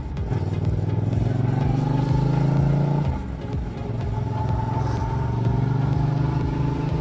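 Motorcycle engine accelerating through the gears: its pitch climbs for about three seconds, drops at a gear change, then climbs again.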